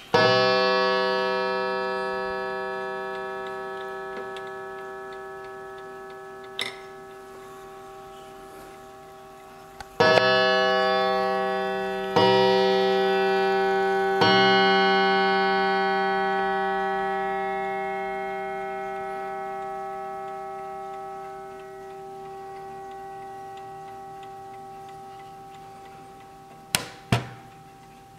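The gong of a 1920 German mantel clock strikes once for the half hour and rings out slowly. About ten seconds later it strikes three times, about two seconds apart, for three o'clock, each stroke a rich, slowly fading ring. The movement ticks underneath, and two sharp clicks come near the end.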